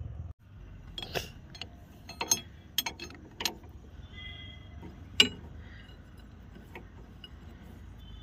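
Steel spanner clinking against the nut, bolt and frame of a tractor rotavator: about nine sharp metal clicks over several seconds, the loudest about five seconds in. A makeshift replacement is being fitted for a broken nut on the rotavator's pulley.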